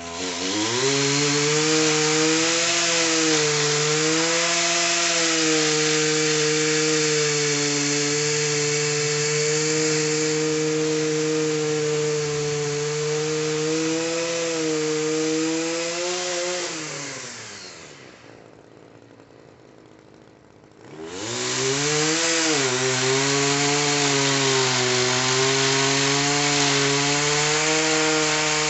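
Gas-powered pole saw revving up and running at high, steady speed while cutting tree limbs. About 17 seconds in it winds down and stays low for a few seconds, then revs back up and runs on.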